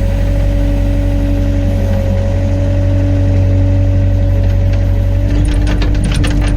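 Diesel engine of working construction plant running steadily, with a steady whine over it. A run of rattling metallic clanks starts a little after the middle and goes on to the end.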